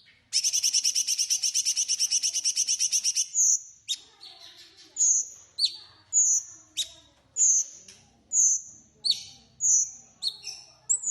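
Cucak cungkok songbird singing: a fast, dense trill for about three seconds, then a string of short, high, whistled notes repeated at a steady pace.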